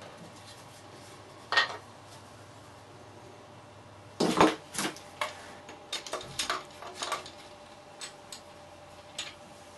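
Scattered clinks and knocks of metal tools and wood being handled at a workbench. There is a single knock about a second and a half in, then a loud cluster about four seconds in. Several more clinks follow, some with a brief metallic ring, and a few light taps come near the end.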